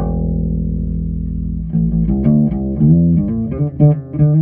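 Ibanez SRH505F fretless bass played through an amp: a held note, then from about two seconds in a quick run of notes with slides between them, ending on another held note.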